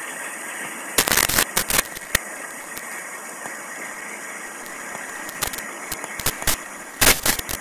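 Creek water, swollen and muddy after heavy rain, rushing steadily out of a road culvert pipe. About a second in and again near the end, loud clusters of crackling pops cut across it, with a few scattered pops in between.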